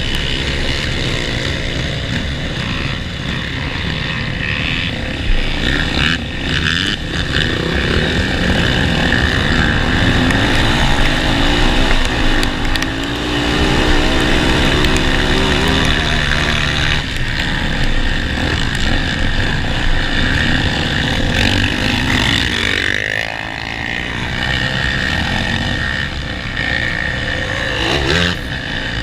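Honda Tornado 250 dirt bike's single-cylinder four-stroke engine running under load on a trail, revs rising and falling with the throttle.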